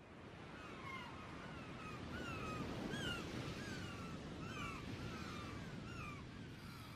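A bird chirping over and over, short calls that each fall slightly in pitch, about two a second, over a steady outdoor background noise.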